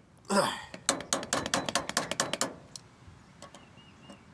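A rapid run of about a dozen light hammer taps, some seven a second, driving a small retaining pin through a Troy-Bilt mower's wheel axle, with a brief voice sound just before them.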